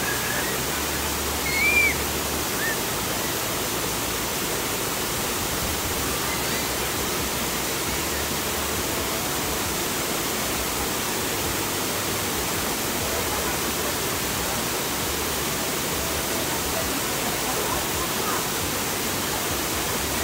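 Steady rushing of a wide waterfall spilling over a stone weir wall into a pool, with a short high-pitched call about two seconds in.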